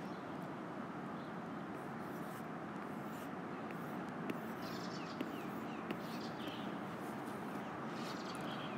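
Steady outdoor background noise with a few faint, short descending bird chirps around the middle, and a few light clicks.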